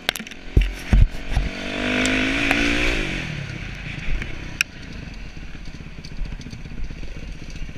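Dirt bike engine heard from onboard, pulling up in pitch under throttle with a few sharp knocks in the first second and a half, then backing off to a lower, evenly pulsing run from about three seconds in.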